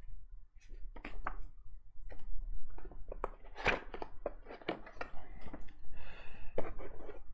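Folded paper instruction leaflets being handled and leafed through: an irregular run of crinkles and rustles with light taps.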